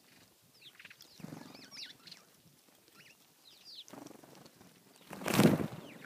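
A small flock of Cape sparrows chirping with short, high cheeps. About five seconds in comes a loud flurry of wingbeats as the flock takes off together.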